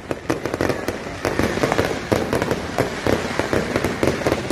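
Aerial fireworks bursting overhead: a dense run of rapid crackling pops and sharp cracks from the sparkling stars.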